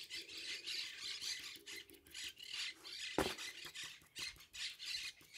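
A homemade paint dauber scrubbed and dabbed against the painted metal of an old cooking pot: faint, repeated scratchy rubbing strokes with a squeak, and a single sharp knock about three seconds in.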